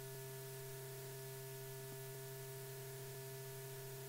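Steady electrical hum with a faint hiss, the background noise of an old film soundtrack between lines of narration.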